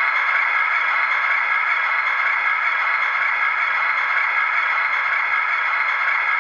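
Sound decoder in a Roco model locomotive playing a steady, noisy running sound of the locomotive through its small speaker.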